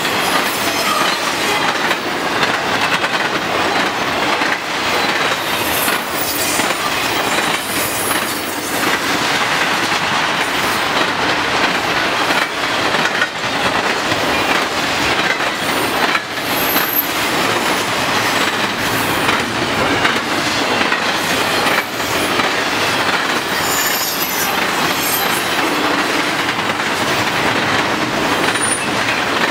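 Intermodal freight cars, double-stack containers and trailers, rolling past at speed: a steady rumble and clatter of steel wheels on the rails, with brief high wheel squeals now and then.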